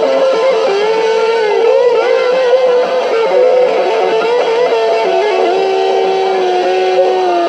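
Electric guitar playing a lead line of bent notes over the music, holding one long sustained note near the end.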